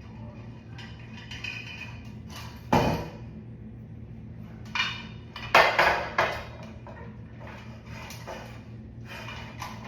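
Parts of an LED ceiling light fixture and its mounting bracket knocking and clinking as they are handled and fitted: one sharp knock about three seconds in, then a cluster of clinks and rattles a couple of seconds later.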